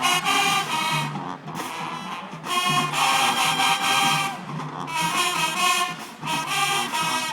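High school marching band playing, with the brass carrying loud held chords in short phrases separated by brief breaks.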